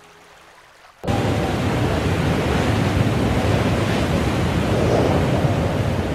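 Gale-force wind of about force 8 and rough, breaking sea waves, with the wind buffeting the microphone. The loud rushing cuts in suddenly about a second in, after a faint tail of music.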